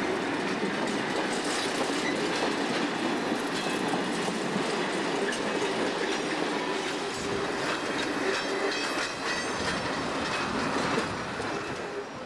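Freight wagons rolling past after being pushed over a shunting hump, their wheels clattering over rail joints and points. A high wheel squeal runs through the second half, and the sound drops away near the end.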